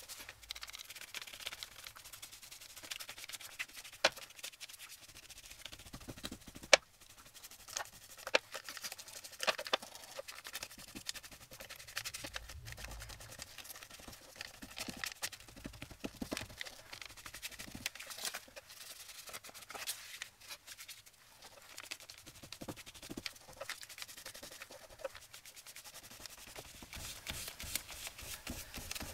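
Vintage Photo distress ink pad dabbed and rubbed along the edges of a cardstock page: faint, irregular scraping with light taps, one sharper tap about seven seconds in.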